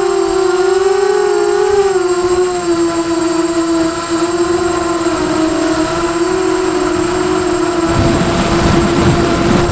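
Emax Nighthawk 280 Pro FPV quadcopter's brushless motors and props whining steadily, the pitch wavering with the throttle and dipping a little after about two seconds. A low rushing noise joins near the end.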